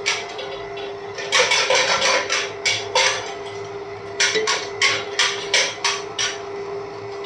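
Stand mixer motor running with a steady hum while its dough hook kneads dry atta flour in a stainless steel bowl. The hook clatters and knocks against the bowl several times a second, in two runs.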